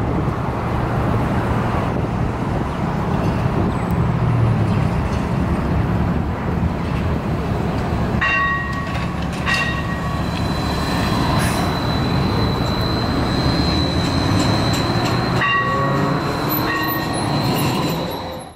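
Street traffic from a trolleybus and a streetcar moving through an intersection, a steady rumble. In the second half come ringing tones, twice around 8 to 10 seconds in and twice more near the end, with a thin high steady squeal between them.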